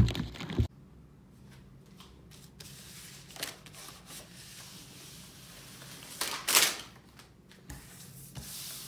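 A pile of Lego trading cards being rustled and slid across a desk by hand. There is a short loud rustle at the very start and a louder burst of sliding cards about six and a half seconds in.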